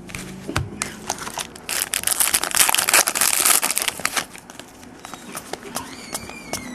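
Trading card pack wrapper crinkling and crackling as it is torn open and handled, with a dense stretch of crinkling from about two to four seconds in and lighter rustles and clicks of card handling around it.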